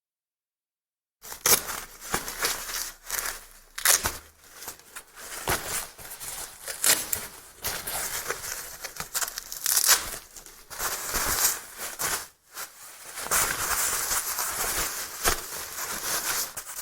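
Disposable diaper being handled during a change: a continuous crinkling and rustling of its plastic and padding, with sharp tearing sounds, starting about a second in.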